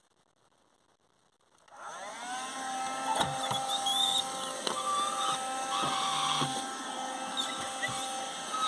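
Kärcher battery window vacuum switched on about two seconds in, its motor whine rising and settling to a steady pitch, then running with brief slurping bursts as it sucks condensation off the van's window glass.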